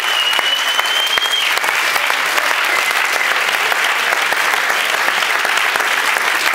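Audience applauding steadily, a dense patter of many hands clapping, with a high held whistle over it for the first second and a half.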